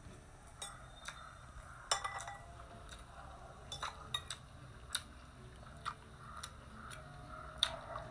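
A metal spoon and fork clinking and scraping against dinner plates while food is cut and scooped, in irregular sharp clicks with the loudest about two seconds in and again near the end.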